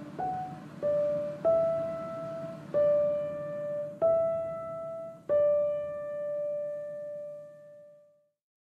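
Solo piano background music: a slow melody of single notes struck roughly a second apart, ending on a long held note that fades away.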